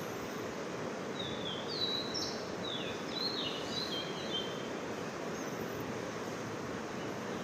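A steady background hiss of outdoor noise, with a short run of high bird chirps between about one and four seconds in.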